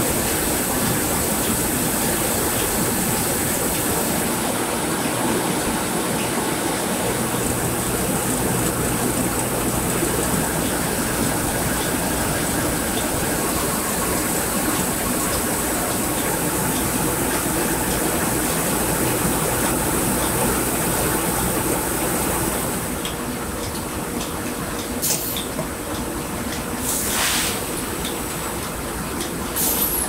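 Rice milling machinery running steadily, a dense mechanical noise with rice grain pouring through the machines and chutes. About three-quarters of the way through the level drops a little, and a few short hissing sounds follow near the end.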